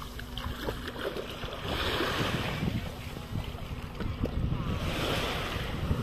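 Small waves washing in on a sandy beach, the hiss swelling about every three seconds, with wind rumbling on the microphone.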